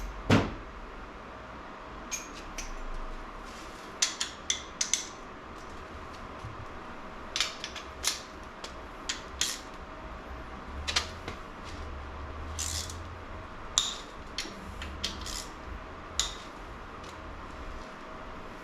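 Metal hand tools and engine parts clinking and tapping in irregular sharp clicks during an engine teardown, with one louder knock near the start, over a low steady hum.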